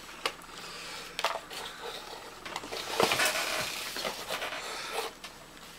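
A cardboard box and the punch-out cardboard sheets inside it being handled: several sharp taps and knocks, with scraping and rustling through the middle as the sheets slide against the box.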